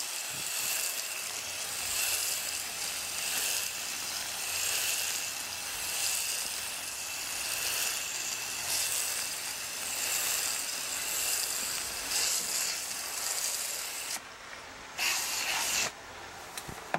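Hose-fed coil cleaner spray gun spraying water and cleaner onto a heat pump's outdoor coil: a steady hiss, cut off briefly twice near the end.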